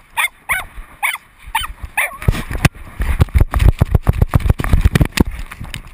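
A dog gives a quick series of short, high-pitched yelps, then, about two seconds in, the sound turns to a rapid, irregular clatter of thumps and knocks as the dog runs with the GoPro strapped to her body.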